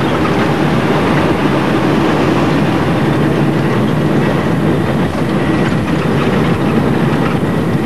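Steady loud rumble and roar inside the flight deck of a Boeing 747-217B rolling on the ground, with engine noise mixed with the rumble of the wheels on the runway.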